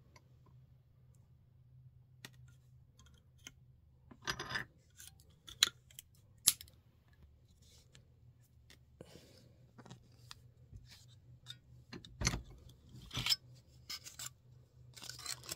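Light metallic clicks and short scrapes of a thin sheet-tin piece being handled and positioned against the jaws of a bench vise, a handful of sharper ticks scattered among them, over a faint steady low hum.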